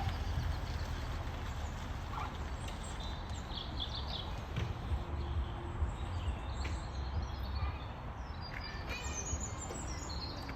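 Scattered high bird calls over a steady low rumble of background noise: a few short calls about four seconds in, and a quick series of notes near the end.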